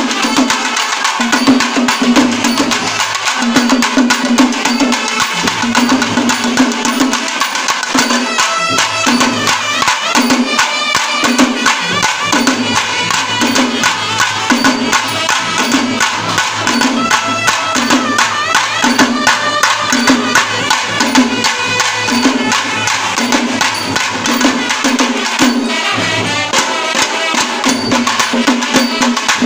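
Traditional Kerala festival ensemble of trumpets, a clarinet and shoulder-slung cylindrical drums playing together. The horns hold loud sustained lines over dense, clicking stick strokes and a steady low beat a little over once a second.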